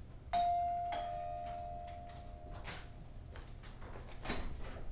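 Two-tone ding-dong doorbell chime: a higher note about a third of a second in, then a slightly lower note half a second later, both ringing out and fading over about two seconds. A few soft thumps follow in the second half.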